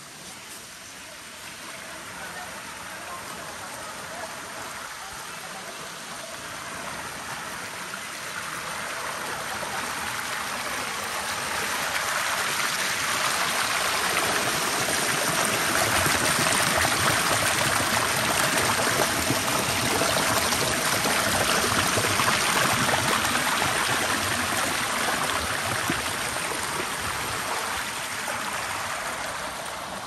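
A waterfall's rushing water: a steady roar of noise that grows louder through the first half, holds loud in the middle, and eases somewhat near the end.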